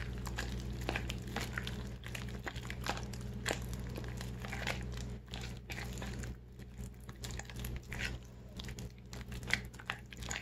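A metal spoon stirring lumpy flour-and-boiled-water batter in a plastic bowl: irregular scraping and clicking of the spoon against the bowl, over a steady low hum.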